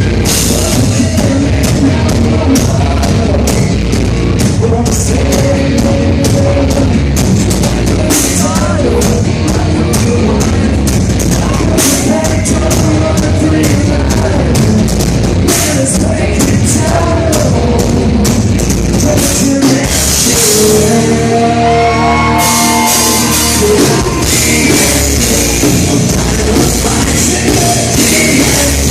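Live hard rock band playing loud, with distorted guitars, a drum kit and a singer. A short stretch with the cymbals dropped out comes about three-quarters of the way through, then the full band comes back in.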